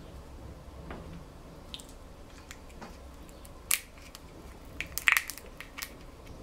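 Snow crab shell being cracked and pulled apart by hand: a string of sharp cracks and snaps, the loudest a little under four seconds in and a cluster about five seconds in.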